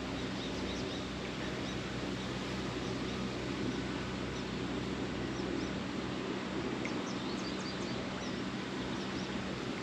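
Steady outdoor background noise with a faint low hum, and a few short, faint high bird chirps about seven seconds in.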